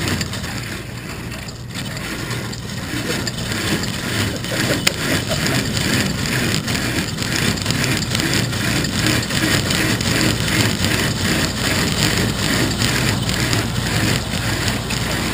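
Small dirt-track race car's engine running while the car drives slowly, heard from an onboard camera mounted in the car.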